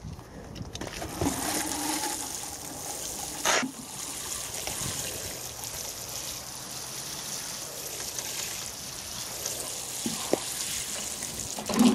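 Watering can with a rose sprinkling water onto compost in small plastic pots: a steady patter of spray that starts about a second in. There is one brief knock about three and a half seconds in.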